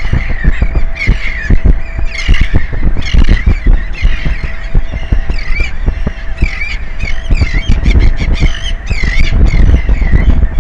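A flock of birds calling over and over in short, harsh honking squawks, several a second, over a loud buffeting rumble of wind on the microphone. A faint steady hum runs underneath.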